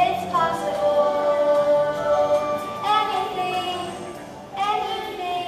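A girl singing a musical-theatre song over backing music, holding long notes.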